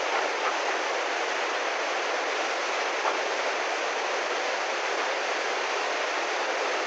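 Muddy flash-flood torrent rushing in a steady, unbroken noise of churning water.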